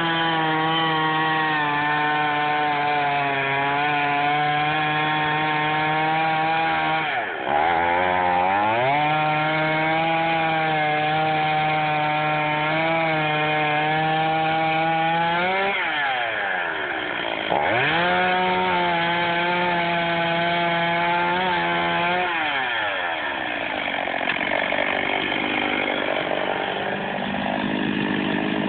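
Chainsaw running at high revs while cutting a tree. Its pitch drops sharply and climbs back three times: about a quarter of the way in, a little past halfway, and about three-quarters through. It then runs on lower and rougher near the end.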